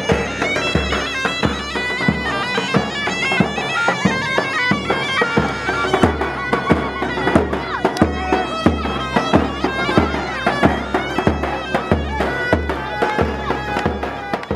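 Kurdish wedding music: a dahol bass drum beating a steady rhythm under a zurna playing a melody of quickly changing notes.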